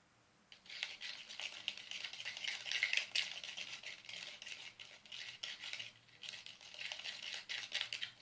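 Thick, Play-Doh-like glue-stick and borax slime being squished and worked, a steady run of wet crackling and clicking with a short lull about six seconds in.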